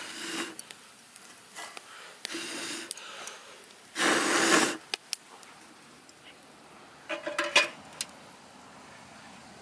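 A man blowing hard down into the fire tube of a metal samovar to get the fire inside going: three breaths, the longest and loudest about four seconds in. Near the end come a few quick metallic clinks, as the chimney pipe is fitted on top.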